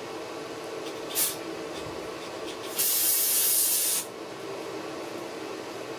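Aerosol carburettor cleaner spraying, a short blip and then a hissing spray of about a second, blowing debris out of a lawn mower engine's carburettor.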